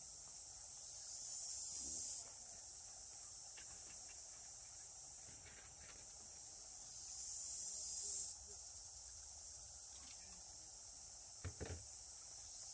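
Insects shrilling in a steady high-pitched hiss that swells louder twice for a second or so, with a few light knocks near the end.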